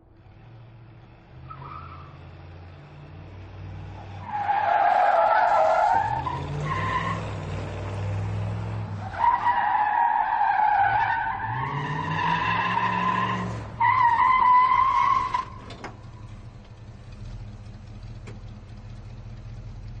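Muscle car engine revving up as its tyres squeal through three skids, about four, nine and fourteen seconds in, the middle one the longest; between and after them the engine runs on at a low rumble.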